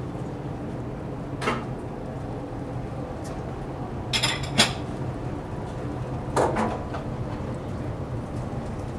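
Steady low drone of a car ferry's engines, with a few short knocks and clinks: one about a second and a half in, a quick cluster of them at about four and a half seconds (the loudest), and another near six and a half seconds.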